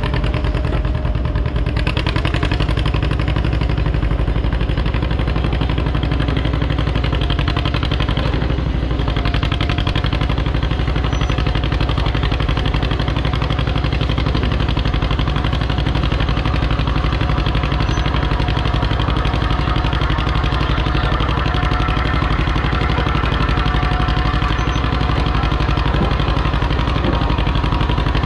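Engine idling steadily at an even pitch, with no revving.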